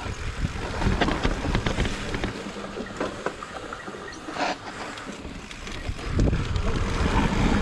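Wind buffeting the microphone over the rumble of mountain-bike tyres rolling on a rocky dirt trail, with scattered clicks and rattles from gravel and the bike. The low rumble eases off for a few seconds in the middle and picks up again near the end.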